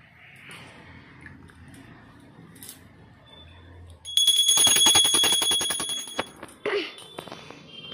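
Puja hand bell rung rapidly for about two seconds starting about halfway in, many quick strokes with a steady high ring that fades out.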